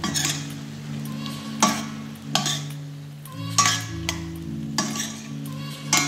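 A metal spoon stirring and scraping shrimp and chopped eggplant around a stainless steel pot, about six scrapes roughly a second apart, with the food sizzling. Background music with sustained low notes plays underneath.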